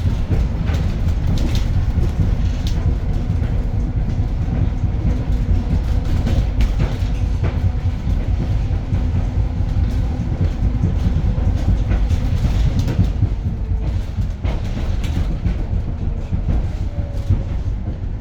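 Interior running noise of a 2021 Edison Motors SMART 093 electric bus on the move. Heavy, steady road and tyre rumble is mixed with frequent rattles and knocks from the bus body, over a faint steady tone.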